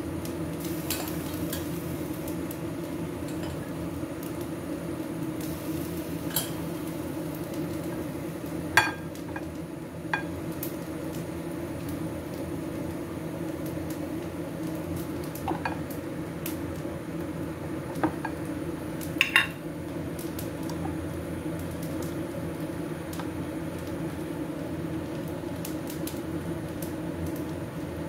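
Spoon clinking and scraping against a glass jar and a ceramic plate while thick shrimp paste is scooped out and dropped onto the food: a handful of separate sharp clinks, the loudest about nine and nineteen seconds in, over a steady low hum.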